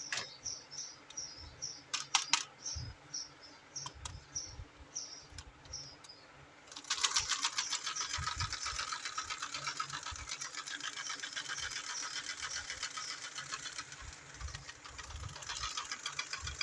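A small battery-powered toy motor starts suddenly about seven seconds in and runs on with a fast, even clicking rattle. Before it come a few light plastic clicks and taps.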